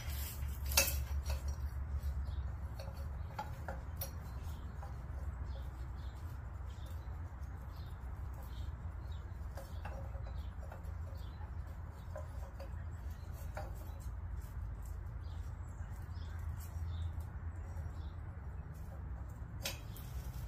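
Scattered light clicks and scrapes of steel exhaust tubing being handled and fitted against a motorcycle engine's exhaust port, with one sharper click about a second in, over a steady low hum.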